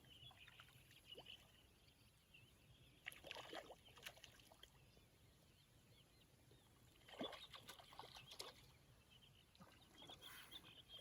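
Near silence by the water, broken by a few faint, short noises about three seconds in and again around seven to eight seconds.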